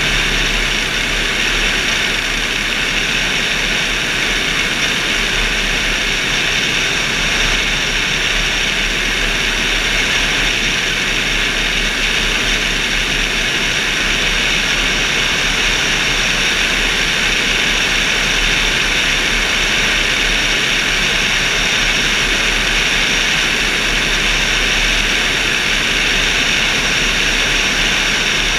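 Steady in-flight noise from a camera mounted on a motorglider's wing: an even rush of air with a constant drone, unchanging throughout.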